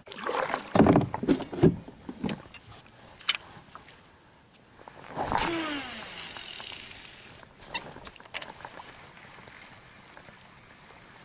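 Fishing reel during a cast: a whine that slides down in pitch as the spool spins down, about five seconds in, over a hiss of line paying out, followed by a couple of sharp clicks. Handling knocks and rustles come in the first two seconds.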